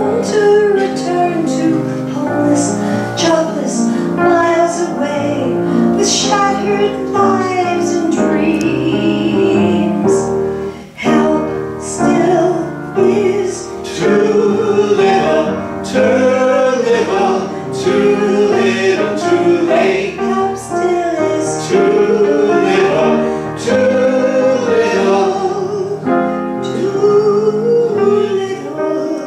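A woman's voice leading a song with men's voices singing along, a small vocal group performing live into microphones.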